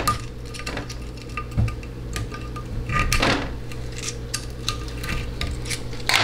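Steel hand tools clicking and scraping against a transmission valve body and its metal tray while a pick is worked into a bore to push the 2-3 shift valve train out. There is a louder scrape about three seconds in and another near the end.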